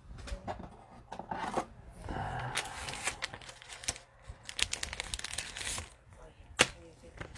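Trading cards and a foil card-pack wrapper being handled: crinkling and rustling with sharp clicks as the cards are slid and flipped.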